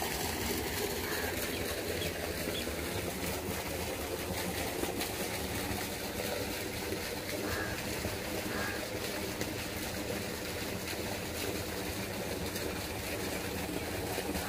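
An engine running steadily at constant speed, a continuous droning hum.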